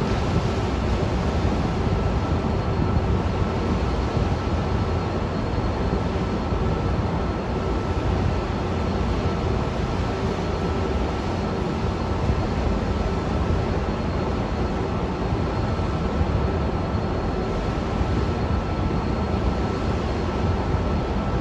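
Steady, unbroken roar of aircraft engines with a faint high whine running through it.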